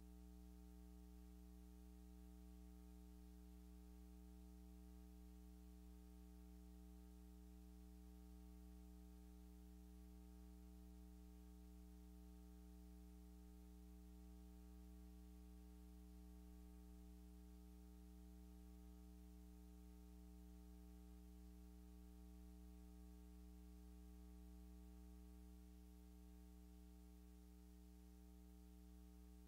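Near silence: a faint, steady electrical hum with a ladder of overtones and no other sound.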